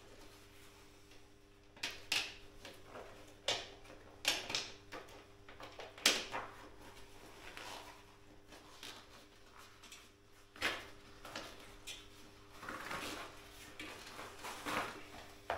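A bicycle tyre being worked off its spoked rim by hand to change the front inner tube: scattered rubbing and scraping of rubber on the rim, with a few light knocks, over a steady low hum.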